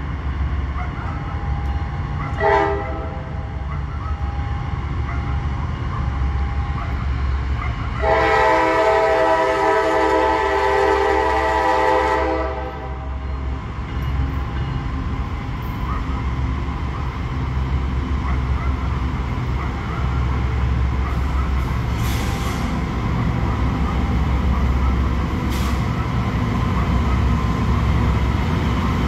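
CSX freight locomotive's air horn sounding a short toot about two seconds in, then a long chord-like blast of about four seconds. Under it, the steady low rumble of the diesel locomotives as the train draws near.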